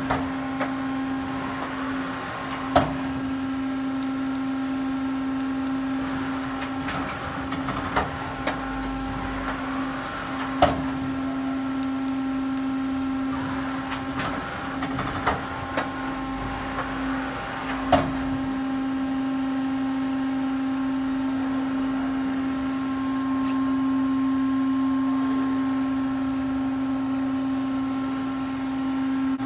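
Powered-up Takisawa EX-106K CNC gang tool lathe humming steadily with one constant low tone and fainter higher tones above it. A few short sharp clicks or knocks come through in the first two-thirds.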